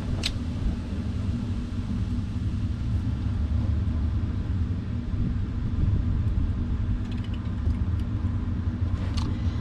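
Wind buffeting the camera microphone: a steady, low rumble in strong wind.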